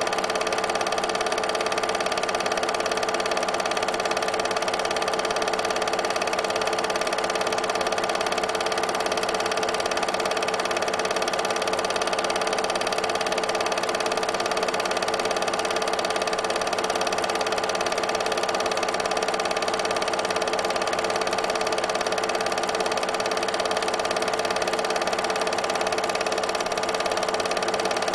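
8mm film projector running: a steady mechanical whir with an even hum that does not change.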